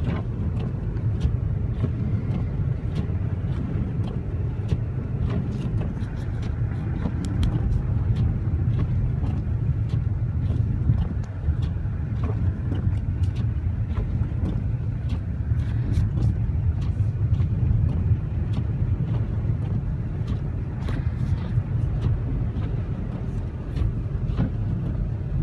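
Infiniti G37x coupe driving on a snow-covered road: a steady low rumble of engine and tyres, with many brief, scattered ticks.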